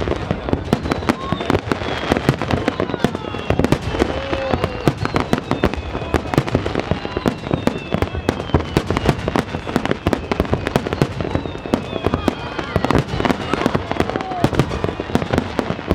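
Aerial fireworks going off in a dense, continuous barrage of bangs and crackles, shell after shell with no pause.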